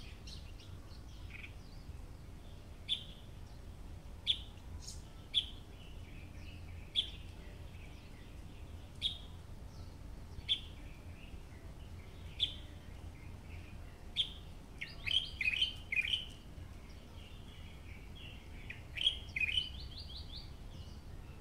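Birds chirping: short sharp chirps every second or two, with quick runs of falling notes about fifteen and nineteen seconds in, over a steady low rumble.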